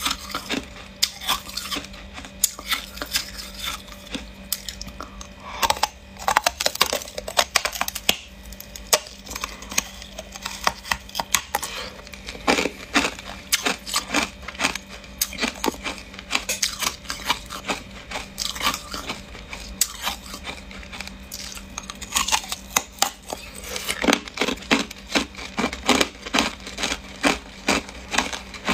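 Hard clear ice being bitten and chewed: crisp cracks and crunches in quick runs, with short lulls between bites.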